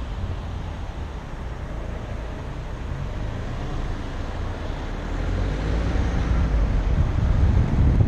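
Wind rush and low road rumble of a moving car, picked up by an action camera mounted on the windshield, getting louder over the second half.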